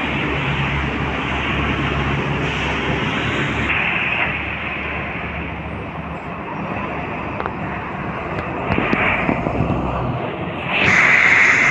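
Articulated city buses' engines running at a bus terminal platform, a steady low rumble under general traffic noise. The sound changes abruptly twice, about four seconds in and near the end.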